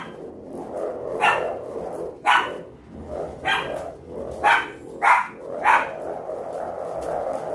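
A dog barking, about six separate barks roughly a second apart, the last three coming closer together.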